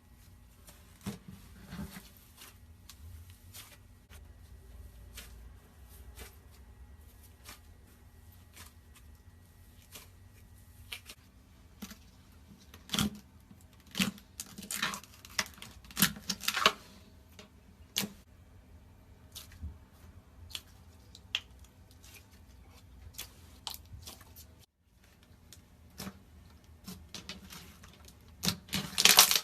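Slime and its containers being handled: scattered small clicks and taps with sticky, crackly squishing. The squishing comes in louder clusters past the middle and again near the end.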